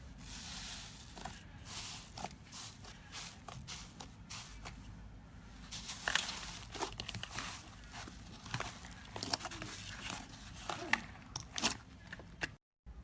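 Slime being squeezed, pressed and pulled by hand, giving off many small sharp crackling clicks and crinkles over a low background hum.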